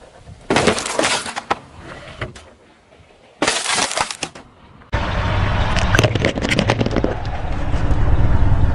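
A car tyre rolling over and crushing objects one after another: a cardboard pizza box crunching, then a foam food container crackling, then sticks of sidewalk chalk snapping and cracking. The last stretch is the loudest, with a steady low car rumble under the cracks.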